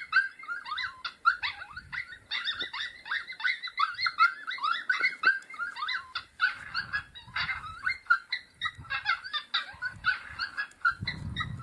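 Electronic predator call (Lucky Duck Revolt) playing a chorus of fast, high-pitched yips and short wavering howls, several voices overlapping without pause. A low rumble comes near the end.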